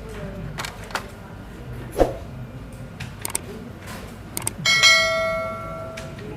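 A few light clicks and taps, a knock about two seconds in, then a single bell-like metallic ring that fades out over about a second and a half.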